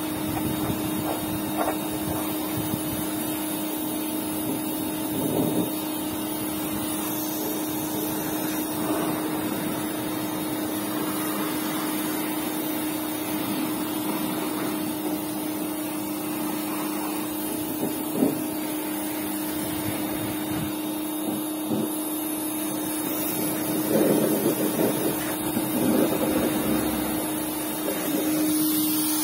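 Small electric pressure washer running with a steady motor hum while spraying water, with a few louder spells near the end.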